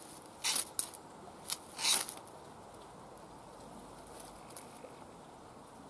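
Ferrocerium rod being struck with the back of a Victorinox Hunter's saw blade, throwing sparks. There are about four quick, sharp scrapes within the first two seconds.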